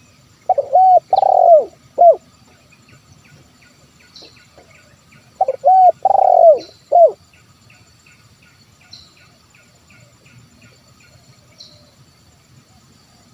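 Spotted dove (tekukur) cooing: two phrases about five seconds apart, each a short note, a second note, a longer drawn-out coo and a short closing note. Fainter high chirps of other small birds or insects tick steadily behind.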